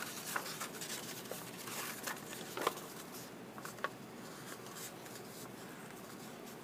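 Paper cube template being folded and creased by hand: faint rustling with a few scattered soft crinkles and taps.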